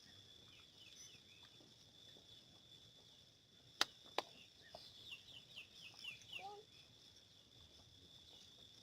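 Faint outdoor ambience with a steady high insect drone. Two sharp clicks come about four seconds in, followed by a quick run of short falling chirps.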